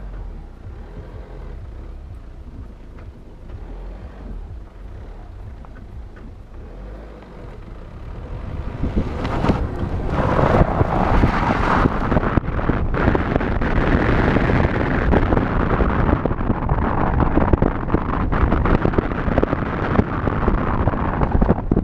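A Ford Fiesta driving on a snow-covered road, heard from outside the car by the door mirror. A low engine and road rumble comes first. About eight seconds in, as the car picks up speed, it gives way to a loud, steady rush of wind over the microphone and tyre noise on the snow.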